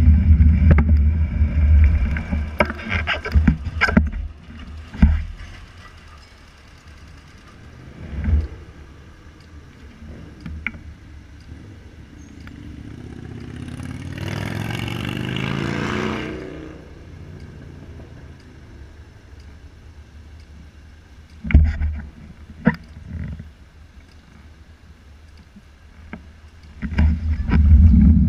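City street traffic heard from a bicycle stopped at a red light. About halfway through, a motor vehicle accelerates past, its engine rising in pitch as it swells and fades. There are scattered knocks, and a low rumble at the start and again near the end.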